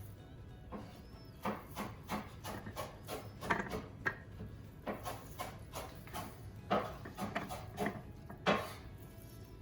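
Irregular light knocks and rubbing sounds of kitchen things being handled, coming unevenly, with the sharpest knocks a little over halfway and near the end.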